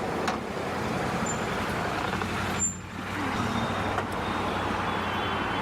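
Vehicle engine running steadily while under way, with road and traffic noise around it; the sound dips briefly about halfway through.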